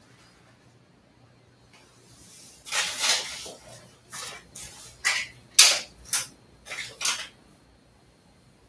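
Household items being handled while tidying: a run of about eight short, sharp rustling and knocking noises over some four seconds, the first one longer.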